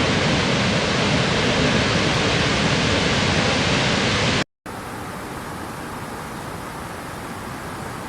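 Steady rushing noise that cuts out abruptly about four and a half seconds in. After a brief gap, a quieter, hissier steady noise takes over.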